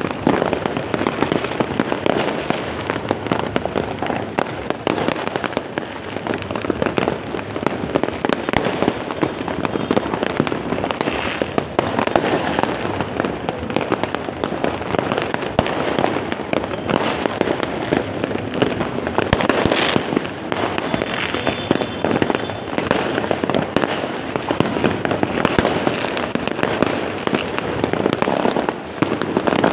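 Fireworks and firecrackers going off without pause: a dense, continuous crackle of countless pops and bangs.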